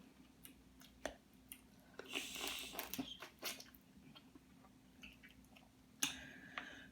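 A person chewing and biting into seafood boil, faint, with scattered short clicks and a busier stretch of mouth noise about two to three seconds in.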